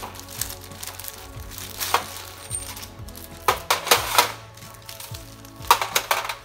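Light metallic clinks and rattles from handling the coiled resistance wire of a new heater element against the heater's glass tube and metal reflector. There are a few sharp clicks about two, three and a half, four and six seconds in.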